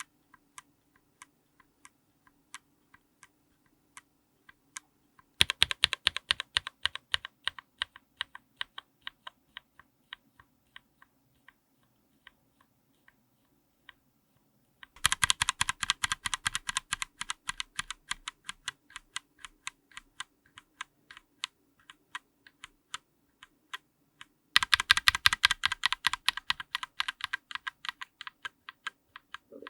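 Linear mechanical keyboard switches under a GMK keycap, close-miked, being pressed: slow single keystrokes at first, then three fast runs of rapid keystrokes, about five, fifteen and twenty-five seconds in, each slowing and thinning out.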